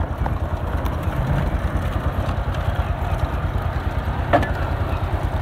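Honda XR motorcycle's single-cylinder four-stroke engine running steadily, with an even low pulsing.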